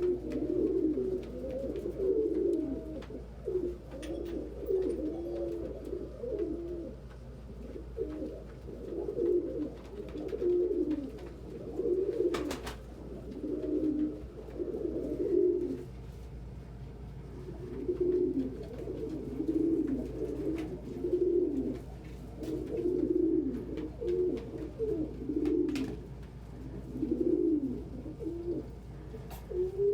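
Several domestic pigeons cooing almost without pause, low overlapping coos, with a short lull about halfway through. A faint steady hum runs underneath.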